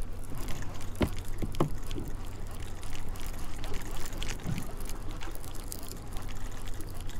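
Water splashing and rushing along the hull of a small boat under way, over a steady low hum from the Mercury Pro XS outboard running at trolling speed. A couple of short knocks come about a second in.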